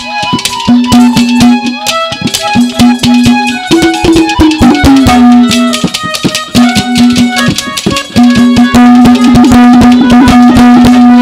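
Instrumental interlude of Haryanvi ragni accompaniment: a harmonium holding and repeating notes over a fast, dense hand-drum rhythm.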